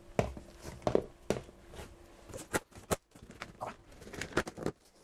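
Handling noise of unpacking: plastic oil bottles set down on the floor, then the plastic packing straps of a large cardboard box pulled off, giving scattered clicks, knocks and rustles.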